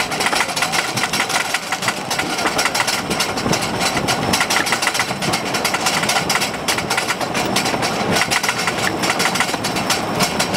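Wooden roller coaster train running on its track, a dense, steady rattling clatter of rapid clicks heard from the front seat.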